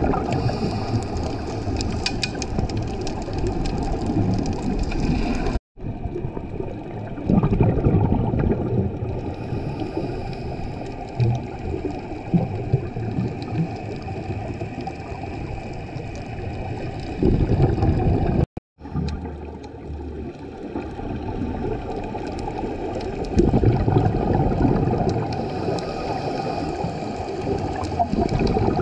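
Scuba diver's regulator breathing underwater, muffled through the GoPro housing: a hiss on each inhale and a rumbling gurgle of bubbles on each exhale, rising and falling every several seconds. The sound cuts out briefly twice.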